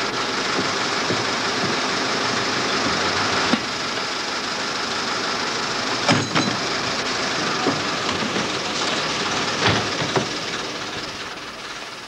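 Knocks and thuds of equipment being stowed in the back of an ambulance over a steady rushing background noise, fading out near the end.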